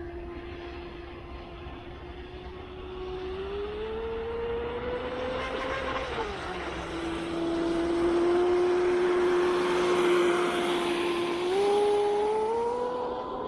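Pro Boat Blackjack 42 RC catamaran's brushless electric motor whining at speed, its pitch rising about four seconds in, dropping back around six seconds, then climbing in steps again near the end, over the hiss of the hull and spray on the water.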